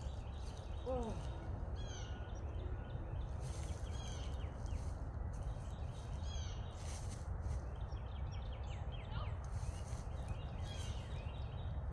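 Wind rumbling on the microphone, with birds chirping now and then.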